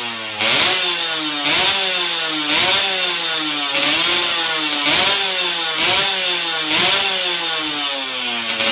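Two-stroke underbone motorcycle with a YY Pang aftermarket exhaust, revved in repeated throttle blips about once a second. Each blip is a sharp jump in pitch that falls slowly back, about seven in all.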